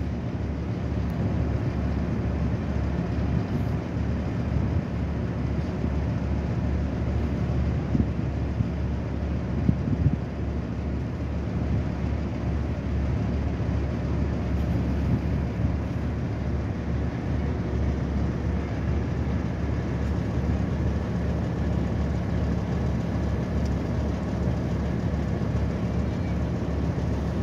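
Excursion boat's engine running steadily as the boat cruises downriver, a continuous low hum with a haze of water and air noise over it.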